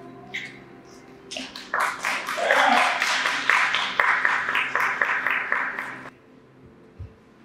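A small group of people clapping, with voices calling out, starting about a second and a half in and stopping suddenly about six seconds in.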